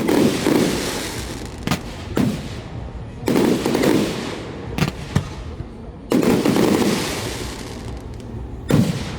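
Aerial fireworks shells bursting: three big booms about three seconds apart, each echoing away over a second or two, with a handful of sharper single cracks between them.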